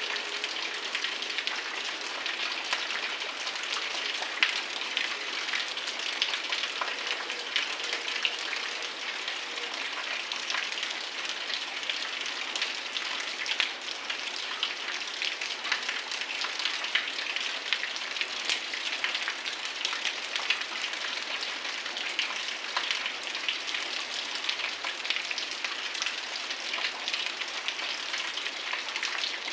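Heavy rain falling steadily: a dense, even hiss of rain with many individual drops pattering sharply on hard surfaces.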